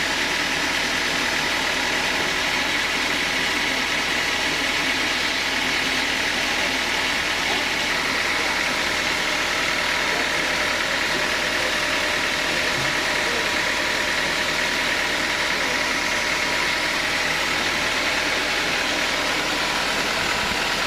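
Engine-driven sawmill machine running steadily at an even pitch and level, a high whine riding over the machine's drone.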